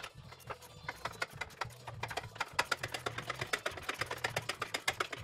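Ratchet wrench clicking in rapid, even strokes while tightening the center nut of a rear tie rod; the clicks grow denser and louder about two seconds in.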